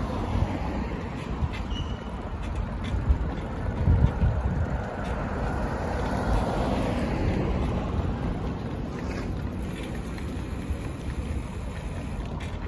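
Wind noise on the microphone of a moving bicycle, over the sound of street traffic, with a car going by about halfway through.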